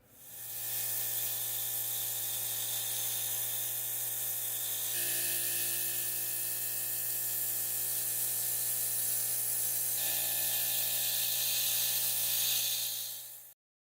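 Compressed air spraying with a steady hiss over a low steady hum. The sound shifts slightly twice and cuts off suddenly near the end.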